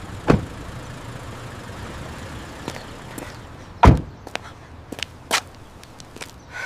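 Steady outdoor street background noise, with a handful of sharp knocks and taps scattered through it; the loudest knock comes about four seconds in.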